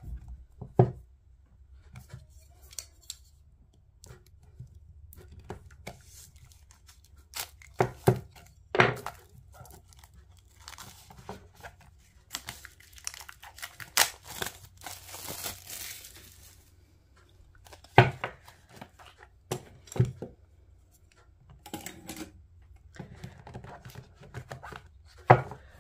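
Plastic shrink-wrap being picked at and torn off a deck of tarot cards. Scattered crinkles and sharp clicks, with a longer stretch of tearing around the middle.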